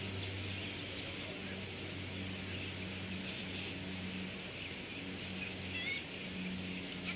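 Natural bush ambience: a steady high-pitched insect drone over a low hum, with a few faint bird chirps about six seconds in.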